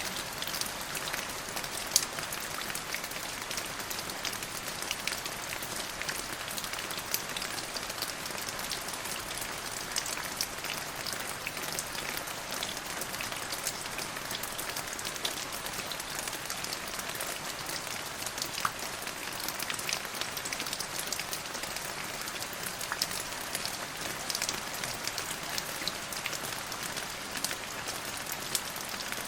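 Steady rain falling on a surface, a continuous hiss dotted with many distinct drop ticks, with a couple of louder drips near the start.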